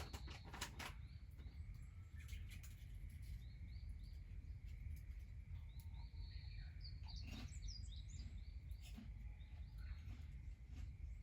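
Small birds chirping, with short repeated calls, over a steady low rumble and a faint steady high note. A few sharp cracks come through, around the middle and near the end.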